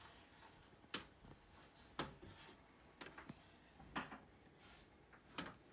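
A series of sharp clicks, about one a second, five in all, over quiet room noise.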